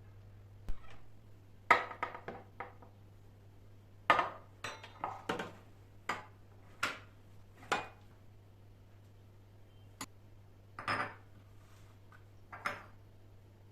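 Kitchen utensils and dishes clinking and knocking, about fifteen separate sharp clinks, some in quick runs of three or four.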